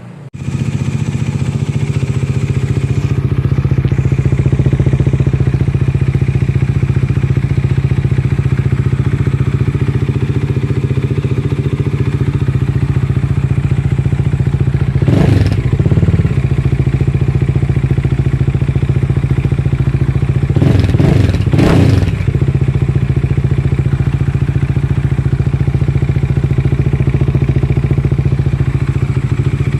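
Bajaj Dominar 400's single-cylinder engine idling steadily through an aftermarket exhaust pipe, revved briefly about halfway through and twice in quick succession about two-thirds of the way in.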